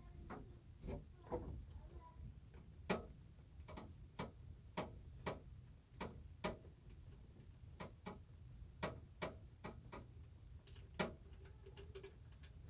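Faint, irregular sharp clicks and taps, about one or two a second, from working the drain plug out of a tankless water heater, over a low steady hum.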